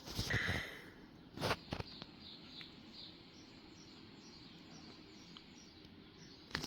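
Quiet handling of a plastic action figure being posed: a brief rustle near the start and another about a second and a half in, then faint small clicks.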